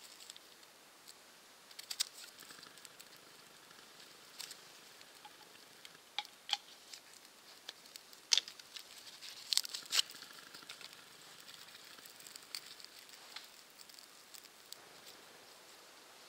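A small wood fire crackling with scattered sharp snaps and pops while kindling and bark are handled and fed into it. The loudest cluster of snaps comes just past the middle.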